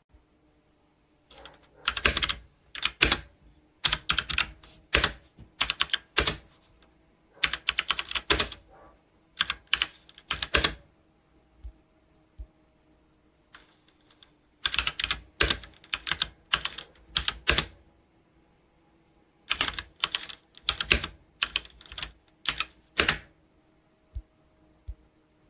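Typing on a Logitech K845 mechanical keyboard with TTC Brown switches: fast runs of key clicks in bursts of a second or two, with short pauses between them.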